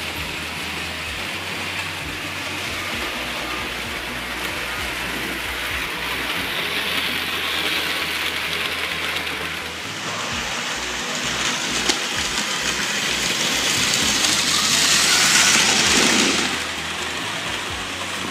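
Märklin HO model trains running on metal track: a steady rolling rattle with a motor whirr, building to its loudest as a train passes close and then dropping off sharply near the end.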